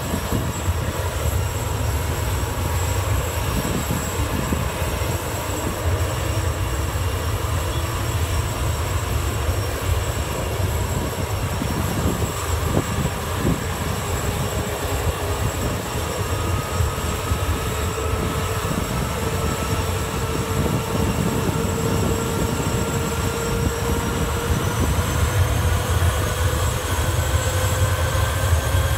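Sikorsky S-64 Skycrane heavy-lift helicopter running on the ground, its turbines and turning rotor making a steady low beat under a constant whine. Over the second half a whine slowly rises in pitch and the sound grows a little louder as the engines spool up toward takeoff.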